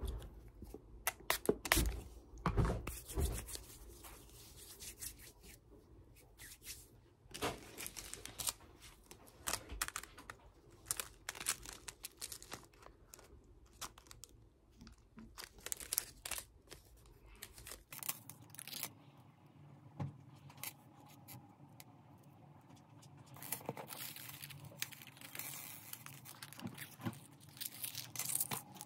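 Hands handling jewellery packaging on a wooden desk: a clear plastic bag and a card rustle and crinkle, with scattered light taps and clicks.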